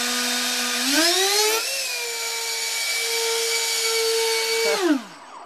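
Two electric ducted fans on an RC airplane, run at their low-speed setting. They give a steady whine over rushing air that rises in pitch about a second in, holds, then spins down and stops near the end.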